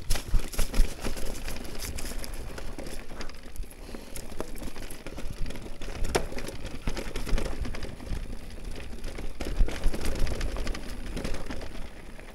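Canyon electric mountain bike riding over a rough trail: the tyres crackle over dry leaves and loose stones, and the bike rattles with many small knocks over bumps, over a low rumble.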